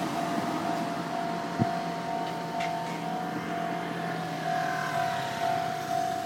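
Japanese level crossing's electronic warning bell ringing in an even repeating pattern, the crossing held closed during freight shunting. A single sharp thump sounds about one and a half seconds in.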